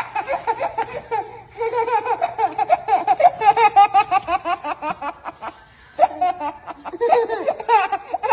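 Babies laughing in long strings of quick, high-pitched laughs, with a short break a little past the middle.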